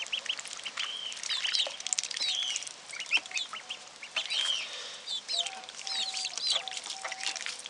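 A brood of young ducklings peeping: many short, high, rise-and-fall calls overlapping throughout, with a few longer, lower, level notes in the second half.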